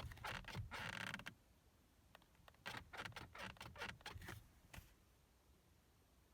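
Light mechanical clicks and rattles in two short flurries, one at the start and another about two and a half seconds in.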